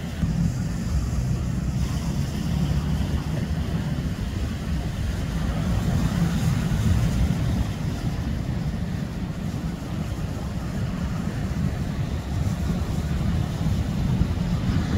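Wind buffeting the microphone: a steady, unevenly fluttering low rumble.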